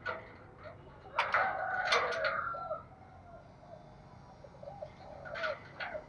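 Spotted dove cooing: a run of coos with a few sharp clicks from about a second in to nearly three seconds, then softer coos near the end.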